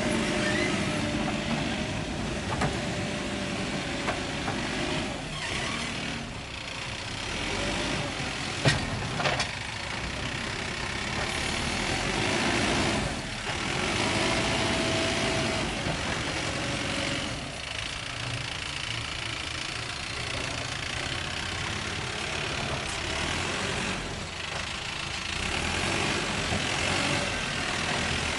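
Mahindra Earthmaster SX backhoe loader's diesel engine running while it works, the engine noise rising and falling with the load. There is a sharp knock about nine seconds in and a brief whine near the middle.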